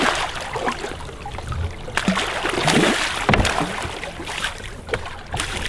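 Water splashing as a hooked paddlefish thrashes at the surface against the side of a boat while being grabbed by hand, loudest in the middle, with a few sharp knocks.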